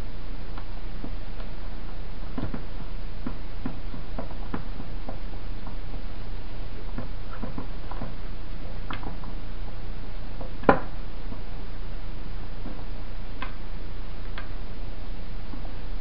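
Scattered light clicks and taps of small fan-motor parts being handled and fitted by hand, with one sharper click about two-thirds of the way through, over a steady low hum.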